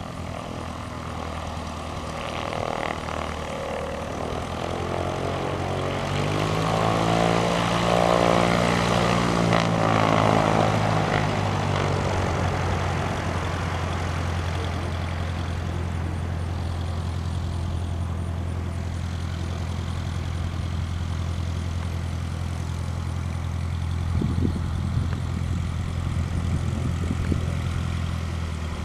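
Cessna 150M's Continental O-200 four-cylinder engine and propeller at low taxi power. It is loudest about eight to ten seconds in as the plane passes close by, the pitch shifting as it goes, then a steady drone as it moves away.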